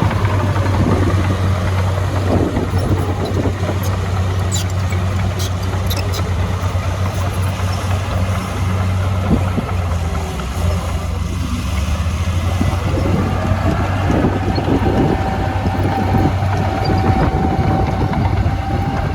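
Heavy diesel engine of earthmoving machinery running steadily with a deep drone, with a few sharp metallic clicks early on and a thin steady whine joining about two-thirds of the way through.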